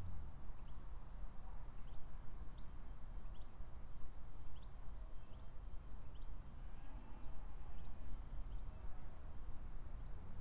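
Small birds chirping: short rising chirps repeated roughly every second, with a couple of thin whistled notes in the second half, over a steady low rumble.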